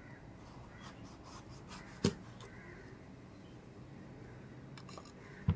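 Kitchen knife cutting into a terung iban (sour Sarawak eggplant) over a wooden cutting board: faint scraping and clicking as the blade works through the fruit, with two sharp knocks, about two seconds in and at the very end.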